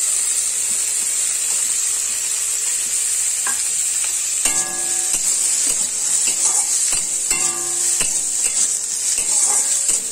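Diced potato and carrot sizzling in hot mustard oil in an aluminium kadai, just added, with a steady hiss. A metal spatula stirs them, scraping and ringing against the pan now and then.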